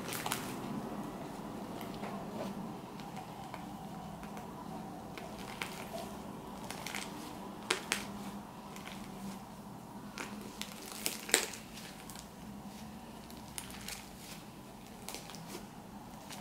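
Slime being squeezed and stretched by hand: soft squishing with scattered sharp pops and clicks, the loudest about eight and eleven seconds in.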